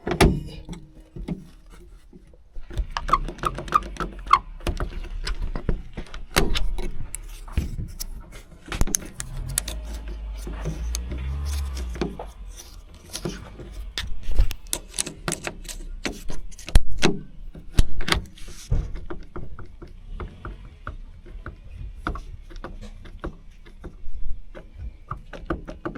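Metal latch parts of a Mazda MX-5 Miata (NA) hardtop catch lock being worked by hand: a long run of irregular clicks, clacks and knocks. They are densest through the first two-thirds and thin out near the end.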